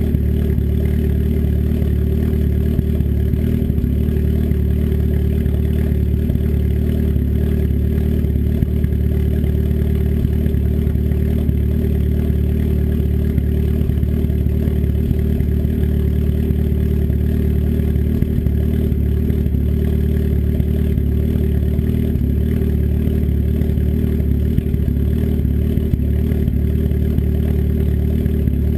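Engine with an S257 turbo and custom cams idling steadily, still warming up after a cold start, its exhaust let out unsilenced through a 3-inch turn-down dump off the downpipe.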